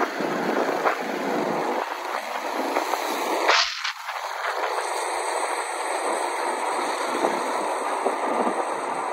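Wind rushing over the microphone, with road noise, while riding a motorcycle along a concrete road. A louder whoosh about three and a half seconds in falls in pitch.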